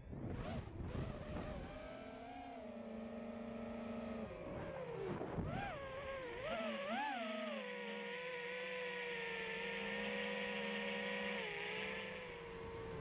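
Brushless motors and propellers of an FPV freestyle quadcopter (TBS Mr Steele Silk motors) whining, the pitch rising and falling with the throttle, with quick throttle blips about halfway through, then holding a steady tone.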